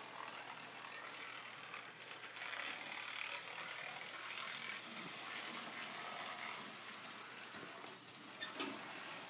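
Kato N scale PRR Mikado model locomotive and train running on the track, a faint steady whir and rattle of the small motor and wheels. A single sharp click comes near the end.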